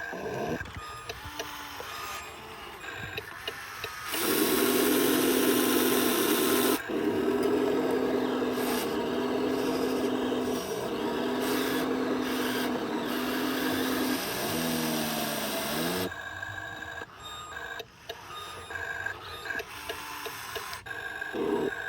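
Electric motors and gearboxes of a radio-controlled bulldozer and truck whirring, with scraping and rasping as loose soil is moved. A louder stretch of steady motor whine starts about four seconds in, starting and stopping several times, and winds down in a falling pitch a little before sixteen seconds.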